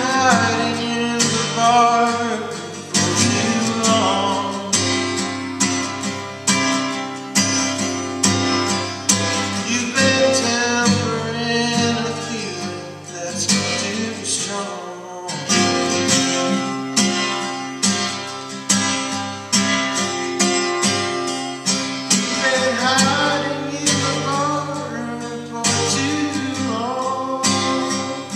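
Acoustic guitar played solo, strummed and picked with regular accented strokes, an instrumental passage between sung verses.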